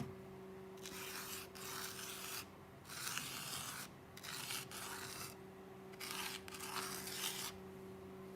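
Hand-writing a word: a series of short scratchy pen strokes, each lasting about half a second to a second, with brief pauses between them, over a faint steady hum.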